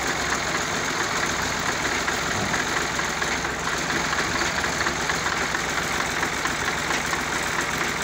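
Massey Ferguson 260 Turbo tractor's diesel engine running steadily.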